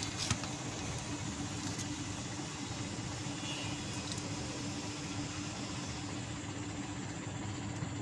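Steady machine hum with one low, unchanging tone under an even background noise, and a few light clicks right at the start.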